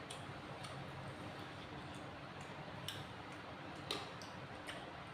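Metal spoon and fork clicking against a plate while eating: scattered light, irregular clicks over faint room noise, with a sharper click about three seconds in and another a second later.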